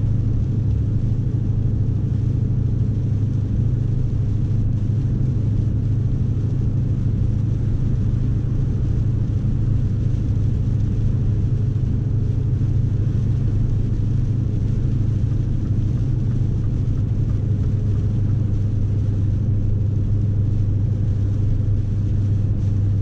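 Scania S520 truck's V8 diesel engine droning steadily as it pulls a fully loaded 38-tonne rig, with road noise over it. The pitch stays level, with no gear changes or revving.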